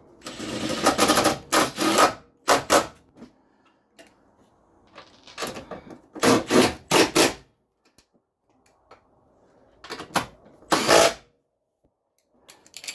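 Socket ratchet clicking in several quick bursts, run down as the new motor mount's bolts are snugged down.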